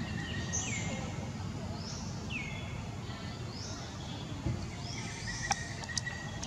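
Bird calling: a short whistled note that falls sharply in pitch, repeated about once a second, over a low steady rumble and a faint thin steady tone. A few sharp clicks come near the end.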